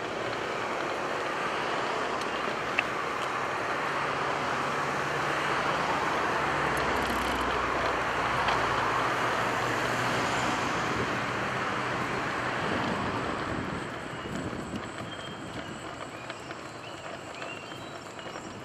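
Road traffic: a steady rush of passing cars' tyres and engines, with a low engine hum in the middle, easing off about fourteen seconds in.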